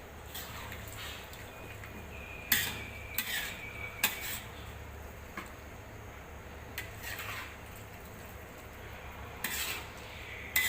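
A metal spatula stirring meat in a cooking pan. It scrapes and clanks against the pan in about eight separate strokes, one or two leaving a short metallic ring.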